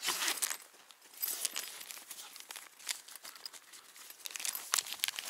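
Irregular rustling and crinkling, with scattered small clicks and knocks, the loudest patch at the very start.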